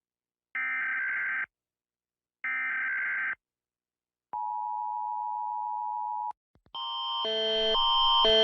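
Emergency Alert System alarm: the last two of three SAME digital header bursts, each about a second long with a second's gap between them, then a steady attention tone near 1 kHz for about two seconds. Shortly after it cuts off, a louder alarm of alternating stepped tones begins and swells.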